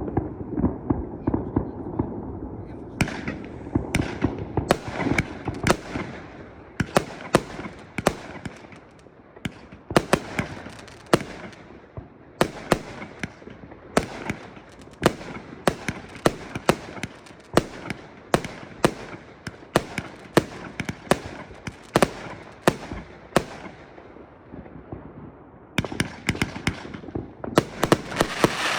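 Fireworks going off: a long, irregular series of sharp bangs, sometimes several a second, with a denser crackling hiss near the end.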